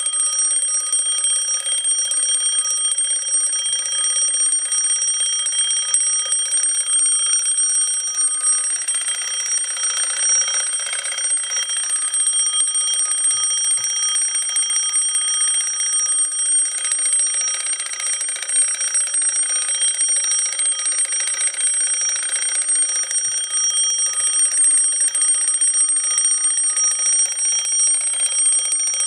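1920s Junghans mechanical alarm clock ringing: its hammer strikes rapidly and continuously on the single domed metal bell on top, giving a steady, unbroken ring.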